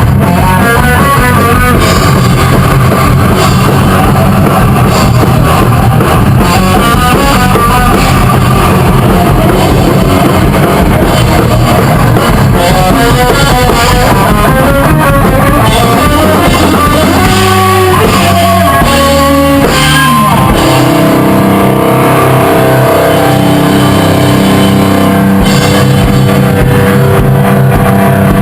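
Rock band playing a take: electric guitars over a drum kit. About 17 seconds in the guitars play a stepped run of falling notes, then settle into held, ringing chords.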